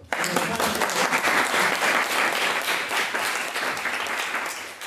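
Audience applauding, starting suddenly and beginning to die away near the end.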